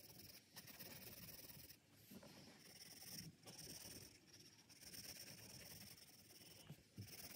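Faint scratching of an HB graphite pencil shading on paper, stroke after stroke, with a few brief breaks where the pencil lifts.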